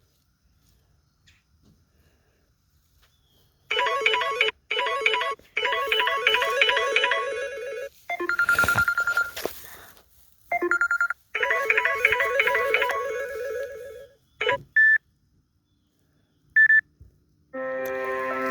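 Samsung Galaxy S6 ringtones played through the phone's speaker, one short melody after another with repeating pulsed notes. Each stops abruptly after a second or a few and the next starts. The first few seconds are near silence, and a new sustained chime begins near the end.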